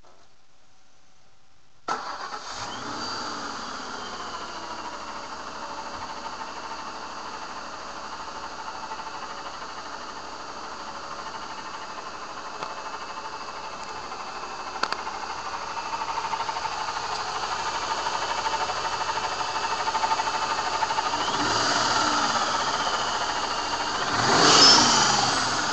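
An engine starts about two seconds in and runs, with the drone and whine of a Vortech V2 SQ supercharger whose bearings are shot. Near the end the engine is revved twice, and the whine rises and falls with it, loudest on the second rev.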